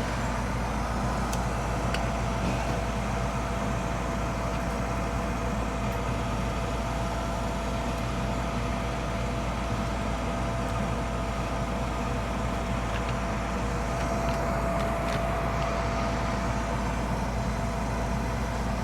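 Old gas furnace running with its burners lit: a steady motor hum with a thin, even whine on top.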